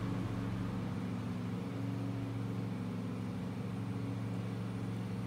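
Steady low mechanical hum from a running motor, unchanging throughout.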